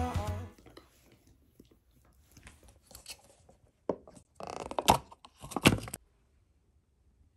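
Foil lid being peeled off a plastic Chobani yogurt cup and a metal spoon scraping inside it: several short crinkling, scraping bursts that stop suddenly about six seconds in. Background music fades out at the very start.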